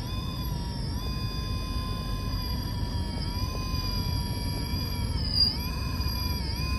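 Brushless motor and ESC whine from an RC rock crawler's Holmes Hobbies Revolver 1800kv motor driven by a Castle Mamba Micro X, as the truck creeps up rock under throttle. It is a steady high whine that dips in pitch about three seconds in and again, more sharply, at about five and a half seconds, over a low rumble.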